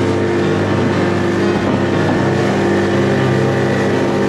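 An engine running steadily at a constant speed, with an even, unchanging drone.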